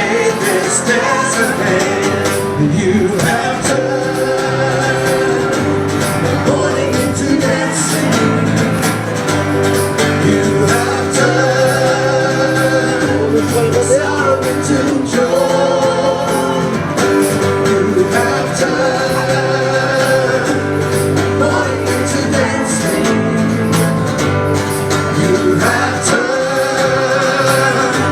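Worship song: voices singing over a band with bass and a steady beat.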